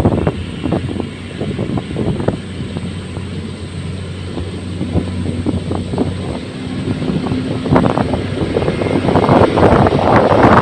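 Motor grader's diesel engine running steadily, with gusts of wind noise on the microphone that grow louder near the start and over the last few seconds.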